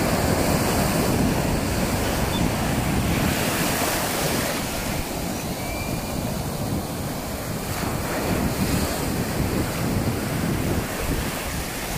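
Surf breaking and foamy waves washing over the shallows in a steady rush, with wind buffeting the microphone.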